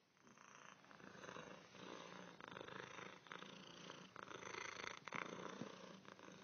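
Siamese cat purring steadily, with a couple of light clicks about five seconds in.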